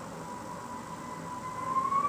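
Wind whistling through a gap in a cottage window: a thin, steady whistle over a rushing hiss, which rises in pitch and grows louder near the end.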